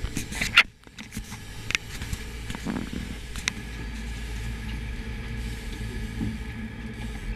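Sportfishing boat's engines running steadily under way, a constant drone. A few sharp knocks come in the first two seconds and one more about three and a half seconds in.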